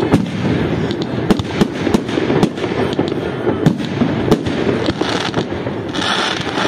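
Fireworks display: aerial shells bursting in a rapid, irregular string of bangs, several a second, with a stretch of hissing near the end.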